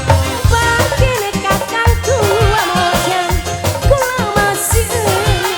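Tarling dangdut band music: a steady drum beat under a bending, wavering melody line.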